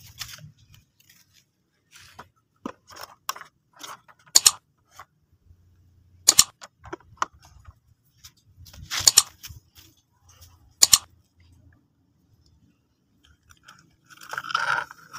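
Plastic toy vehicles being handled and loaded onto a toy truck: irregular sharp clicks and knocks of plastic on plastic, several of them loud, with a short noisier rattle near the end.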